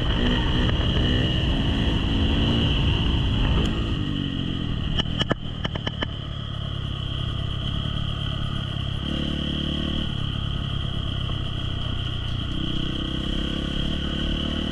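Trail motorbike engine running under throttle, then easing off after about four seconds to a lower, steadier note. A few sharp knocks or clatters come around five to six seconds in.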